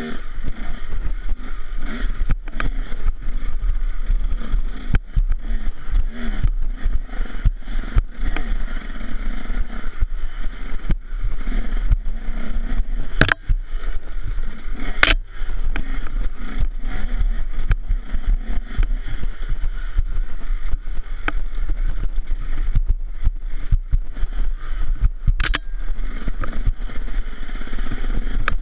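KTM 150 SX single-cylinder two-stroke dirt bike engine running hard, rising and falling with the throttle, with frequent knocks and clatter over rough ground and a few sharp cracks. A steady low rumble of wind on the helmet camera runs underneath.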